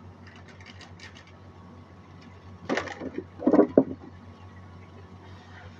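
A wooden spatula knocking and clattering against the counter and cutting board: a few faint light clicks at first, then two loud clusters of knocks around the middle. A steady low hum runs underneath.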